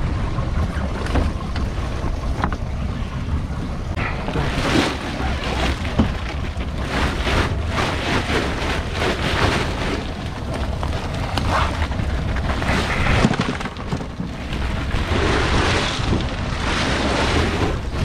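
Wind buffeting the microphone over the steady low rumble of a small fishing boat at sea. Scattered rustles and a few knocks come from a fish bag being filled with crushed ice.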